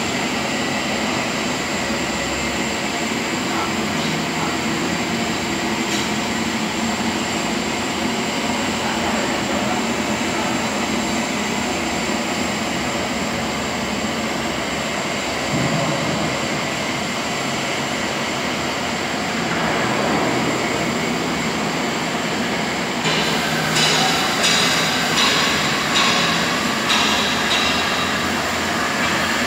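Argon (TIG) welding: a steady hiss and hum with a thin high whine running through. Near the end the sound turns into a run of about half a dozen evenly spaced louder pulses.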